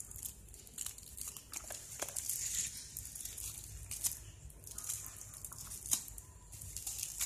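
Clear plastic packaging crinkling and rustling as a toddler handles it, with scattered sharp clicks and taps.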